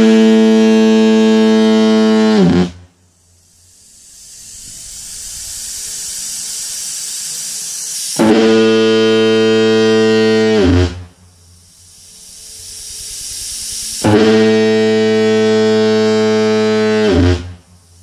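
Type F diaphone fog horn sounding three compressed-air blasts of about three seconds each. Each blast is one deep, steady tone that drops into the short grunt this horn makes as it stops. Between the blasts a hiss of air builds steadily.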